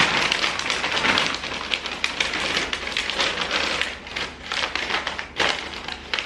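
Paper luminary bags being opened and folded by hand, a dense crinkling and rustling of stiff paper made of many small crackles. It thins out in the second half.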